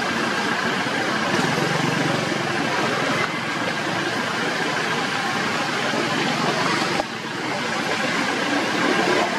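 Steady outdoor background noise, a continuous hiss with a faint steady high tone, that shifts abruptly in level about three and seven seconds in.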